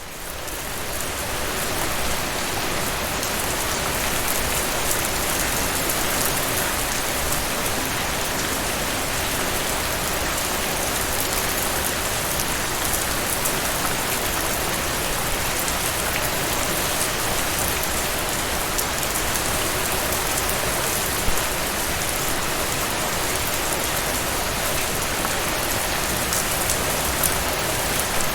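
Steady, heavy rain falling on a surface, a dense hiss dotted with individual drop ticks; it fades in over the first two seconds and then holds even.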